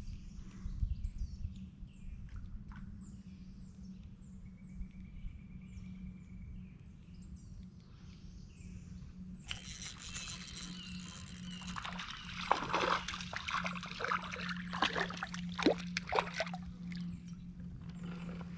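Water splashing and sloshing beside a kayak in short, irregular splashes, starting past the middle and loudest over the next few seconds, as a hooked warmouth thrashes at the surface while it is reeled in. A steady low hum runs underneath.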